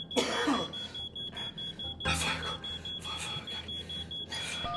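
Smoke alarm beeping: a high tone pulsing on and off in quick even beeps, with bursts of rushing noise over it. Just before the end comes a short two-tone phone keypad beep as a number is dialled.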